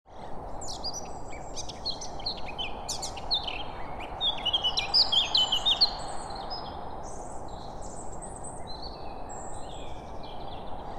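Many birds chirping and calling at once, busiest a few seconds in, over a steady outdoor hiss.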